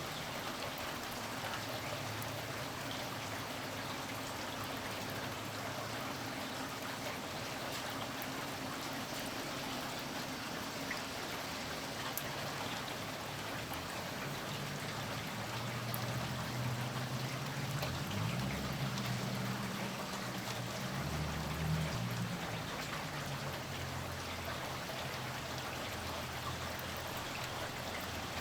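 Steady rainfall with a low rumble of distant thunder that swells and fades again past the middle.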